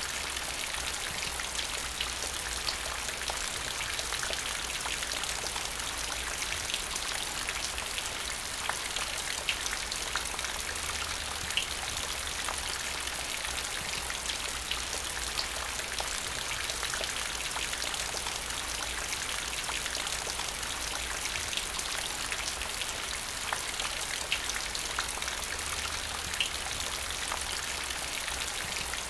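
Rain falling steadily: an even hiss with scattered sharper drop sounds through it.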